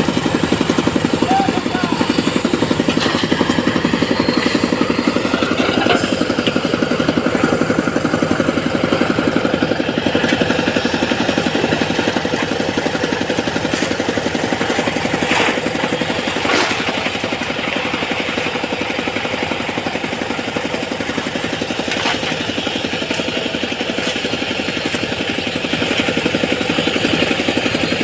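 An engine running steadily with a fast even pulse, with a few sharp knocks or clanks, twice near the middle and once later.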